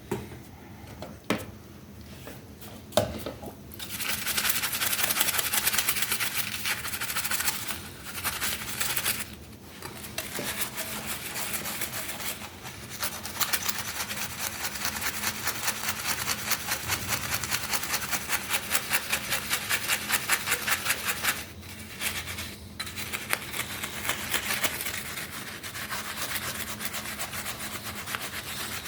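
A few light knocks, then hand sanding or filing on a hard surface: long runs of even back-and-forth abrasive strokes, with brief pauses between passes.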